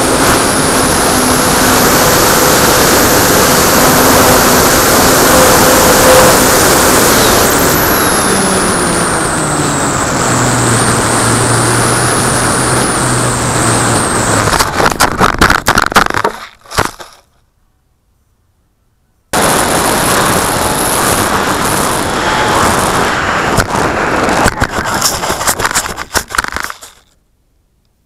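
Airflow rushing over an onboard camera on a radio-control Me 163 Komet model, with the high whine of its electric motor, which slides down in pitch about a third of the way in as the throttle comes back. A little past halfway come rapid knocks and scrapes, fitting the plane touching down and skidding on grass, and the sound cuts off suddenly. After a short silence comes another stretch of rushing noise with knocks, which also stops abruptly.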